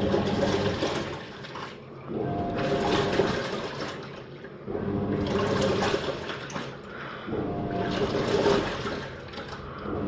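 Living & Co 5.5 kg top-load washing machine agitating during the wash: the pulsator motor runs in strokes of about two seconds, with short pauses between, churning water and clothes. There are four strokes in all.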